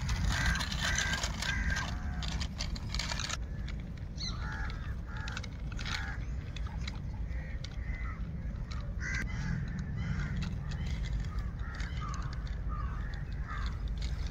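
Birds calling again and again, short calls repeated over a low steady rumble.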